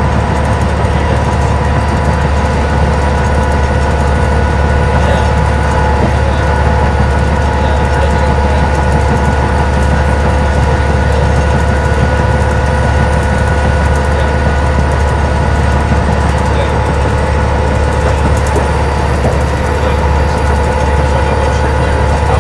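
Detroit Diesel Series 50 EGR inline-four diesel bus engine droning steadily at freeway cruising speed, heard from inside the cabin, with road noise and a steady whine over a deep low rumble.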